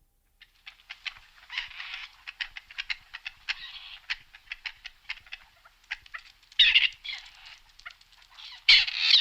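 Grey partridges calling: a rapid, irregular series of short harsh notes, with louder, denser bursts of calling about six and a half seconds in and near the end.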